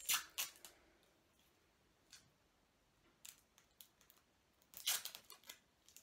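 Clear sticky tape being pulled off the roll and torn, in a few short crackly rasps: one near the start, a brief one about three seconds in, and a longer, louder run just before the five-second mark.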